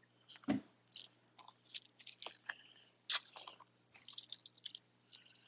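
Irregular small clicks and crackles of objects being handled close to the microphone, loudest about half a second in and busiest near the end.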